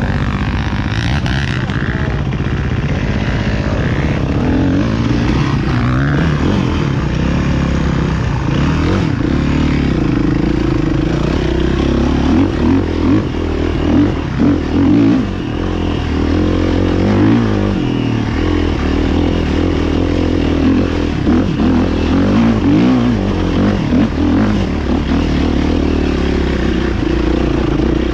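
Motocross motorcycle engines revving, their pitch rising and falling again and again as the bikes accelerate and shift.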